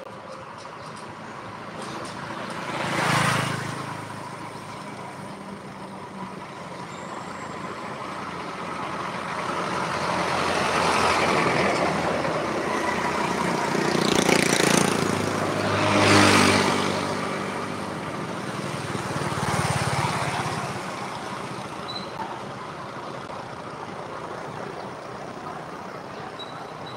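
Road traffic: several motor vehicles driving past one after another, each swelling up and fading away. The loudest passes come about halfway through, two close together with engine hum, over a steady background of traffic noise.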